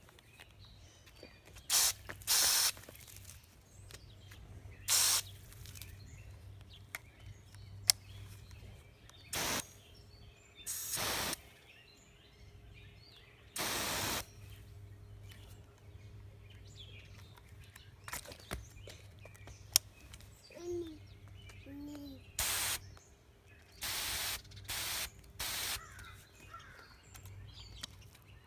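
A pistol-grip nozzle on a garden hose spraying water in about ten short bursts, each starting and stopping abruptly as the trigger is squeezed and released, with quiet gaps between them.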